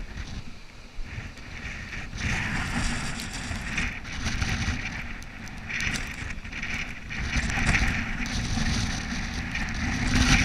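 Hurricane wind buffeting the microphone: a low rumble with a rushing hiss that swells in gusts, rising about two seconds in and again near four and eight seconds.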